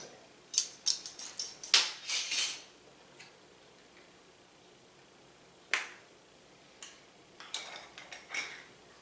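Clinks, taps and scrapes of a metal measuring spoon against a small glass spice jar as seasoning is measured out, in a busy run over the first few seconds. After a pause come a couple of single clicks and another short cluster near the end as the jar and its lid are handled.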